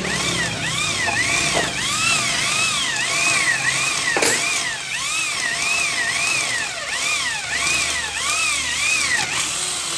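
Electric drill with a 6 mm bit drilling out a steel rivet, its motor whine rising and falling about twice a second as the bit catches and frees. A single knock about four seconds in; the drill stops near the end.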